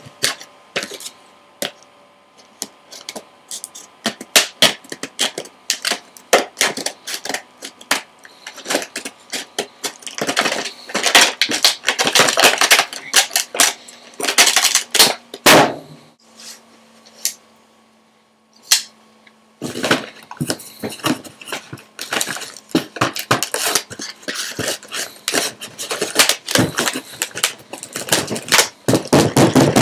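Stiff clear-plastic blister packaging being handled and opened: dense runs of sharp crackles and clicks of the plastic, with knocks against the table and a quieter spell of a few seconds in the middle.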